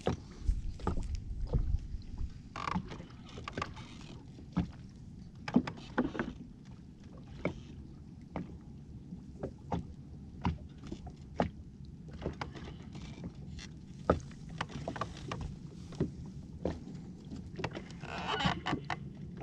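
Water slapping against the hull of a small fishing boat in irregular light knocks and taps, over a low steady hum.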